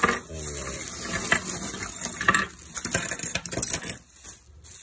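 Zinc-plated steel eye hooks, screw hooks and turnbuckles tumbling out of a plastic shopping bag onto a counter, clinking and jangling against each other in many quick clicks, with the bag crinkling. The clinking dies down near the end.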